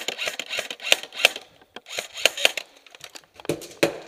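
Airsoft guns firing in quick strings of sharp clicking shots, several a second, with short pauses between strings. A few heavier, duller knocks sound near the end.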